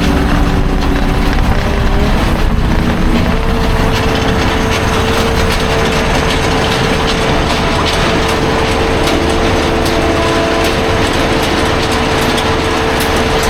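Skid steer running under work, a steady engine drone with a held tone that comes in about three seconds in.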